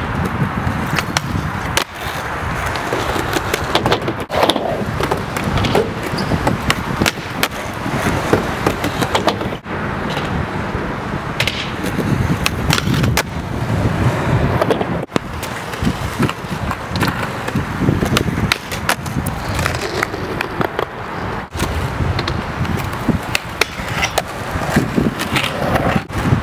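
Skateboards rolling over a rough asphalt court, with repeated sharp clacks and knocks of the boards hitting the ground, ramps and rail.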